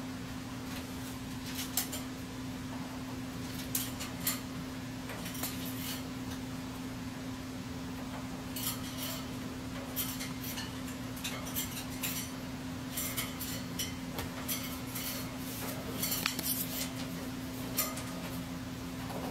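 Scarlet macaw climbing down the outside of its cage, its beak and claws gripping the metal bars in scattered light metallic clinks and taps, coming more often in the second half.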